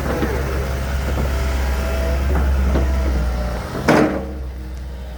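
Komatsu PC138US-11 excavator running, its diesel engine droning with whining hydraulics that shift in pitch as it works. About four seconds in there is a short loud burst of noise, after which the engine's low drone drops away.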